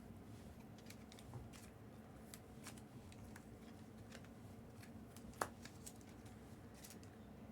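Faint handling of trading cards: light scattered ticks and rustles over low room hum, with one sharper click about five and a half seconds in.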